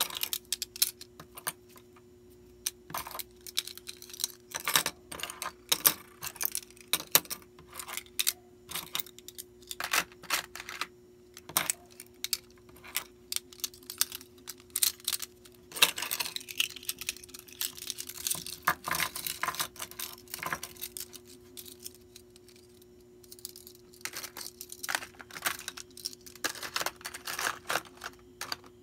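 Irregular clicks, taps and rustles of small items and packaging being handled, with a denser stretch of rustling about halfway through. A faint steady hum runs underneath.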